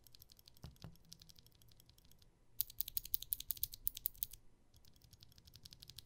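Rapid clicking of two Outemu Blue clicky mechanical keyboard switches pressed by hand, one overlubed and one stock. The clicks are fainter for the first two seconds, much louder for about two seconds in the middle, then fainter again. The overlubed switch is called completely ruined, its sound not the same every time.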